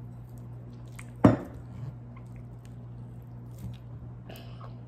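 Hands squishing and kneading wet edible slime in a glass bowl, with one loud thump about a second in and a few softer squelches later.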